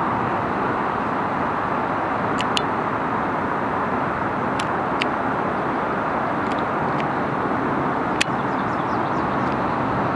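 Steady outdoor background noise, a low rumble like distant road traffic. A few brief high chirps and ticks sound over it, the sharpest click about eight seconds in, followed by a quick run of faint chirps.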